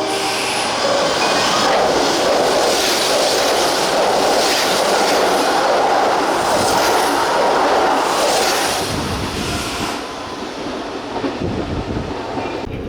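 Kintetsu Urban Liner limited express train running through the station, with a loud rush of wheel and rail noise and a repeated clatter as its wheels pass over rail joints. It dies down about nine seconds in as the last cars go by.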